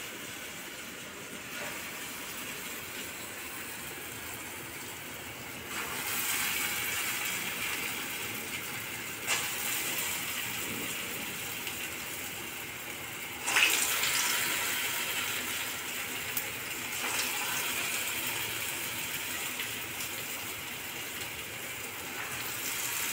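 Urad dal vada batter deep-frying in hot oil: a steady sizzle that flares up suddenly about four times as more balls of batter drop into the oil.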